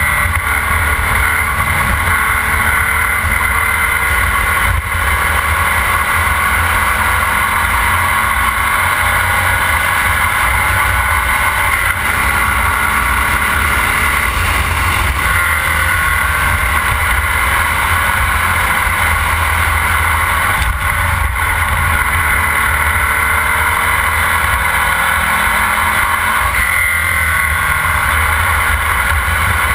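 Formula Vee race car's air-cooled Volkswagen flat-four engine running hard at racing speed, heard from on board. Its note rises and falls through gear changes and corners.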